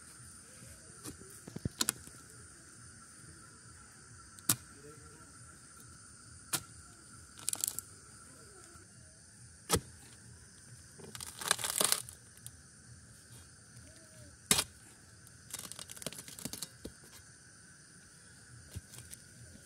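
Long iron bar striking and prying at the soil and roots around a tree stump: irregular sharp knocks every one to three seconds, with a longer scraping, tearing burst a little past the middle. Insects chirr steadily behind.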